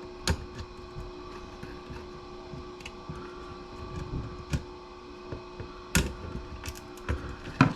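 Scattered sharp clicks and taps of fingers working at memory modules and their slot clips on a 486 motherboard, over a steady low hum.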